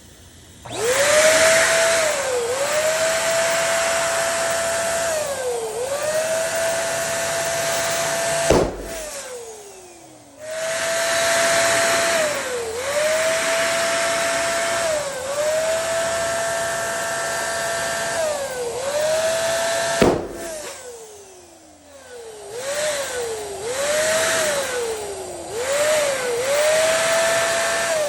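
Electric balloon pump running with a steady motor whine that sags and recovers every couple of seconds as balloons inflate. A balloon pops sharply twice, about 9 and 20 seconds in, and the first pop is followed by the motor winding down.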